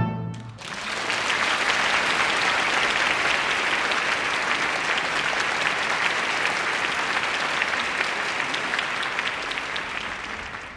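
The last orchestral chord cuts off at the start. A theatre audience then breaks into applause, an even clapping that fades away near the end.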